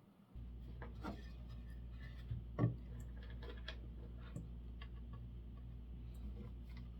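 A steady low hum comes on about a third of a second in, with scattered knocks and clicks of wooden pieces being handled over it; the loudest knock comes a little over two and a half seconds in.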